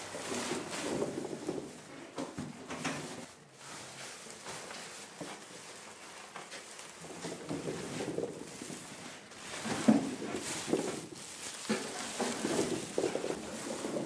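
Apples tumbling out of a sack onto a slatted wooden sorting table, knocking and rolling against the wood and against each other in irregular thuds, with one sharper knock about ten seconds in.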